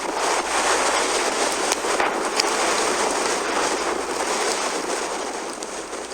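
Steady rushing storm wind with scattered sharp ticks. It swells about half a second in and eases off toward the end.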